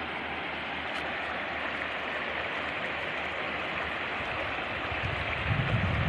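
Shallow mountain river running over stones: a steady, even rushing of water. Near the end, gusts of wind start buffeting the microphone with a low rumble.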